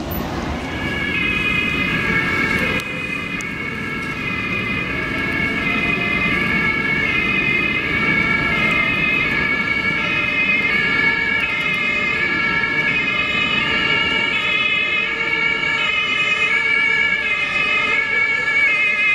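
German two-tone emergency sirens (Martinshorn) on approaching fire engines, alternating steadily between a high and a low note and growing louder towards the end, over low traffic noise.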